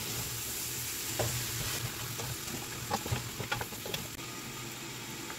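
Cow trotters frying in olive oil with spices in a stainless steel pot, sizzling steadily as a wooden spoon stirs them, with a few light knocks of the spoon against the pot.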